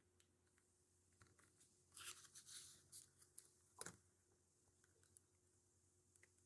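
Near silence, with a few faint clicks and light scrapes about two to four seconds in: a replacement laptop battery being set down into the open laptop's chassis.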